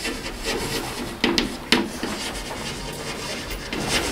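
Chalk scratching on a chalkboard as words are written in short strokes, with a few sharper taps of the chalk about a second and a half in.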